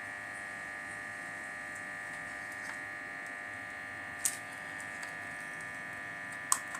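A steady electrical whine throughout, with two sharp clicks about four and six and a half seconds in: a RAM module being pressed into its motherboard slot, its retaining clips snapping shut.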